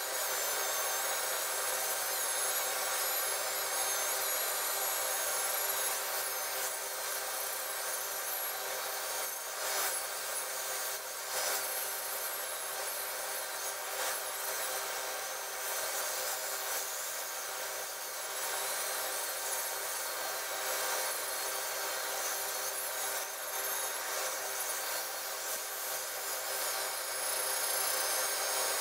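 5-inch angle grinder with a flap (linishing) disc running steadily against the machined face of a cast steel anvil, a constant motor whine under the rasp of the abrasive on the steel. The disc is polishing off the machining lines.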